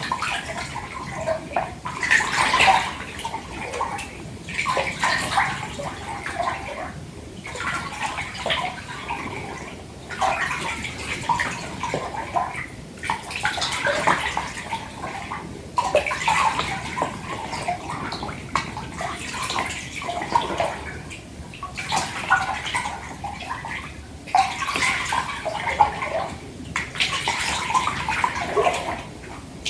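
Water sloshing and lapping in a filled bathtub, in uneven swells with brief lulls every few seconds.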